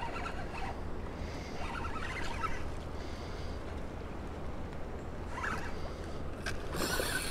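A hooked carp being played on a spinning rod: a steady low rumble of spillway water, several short scratchy bursts, and a splash near the end as the fish swirls at the surface.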